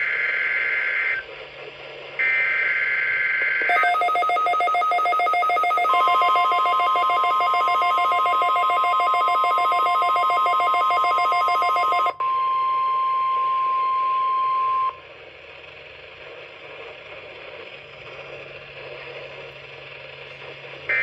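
Two rasping EAS/SAME header data bursts, then pulsing multi-tone electronic beeps. About six seconds in, the steady NOAA Weather Radio 1050 Hz warning alarm tone joins them. The beeps cut off around twelve seconds in, and the warning tone runs on alone until about fifteen seconds in, followed by faint radio hiss.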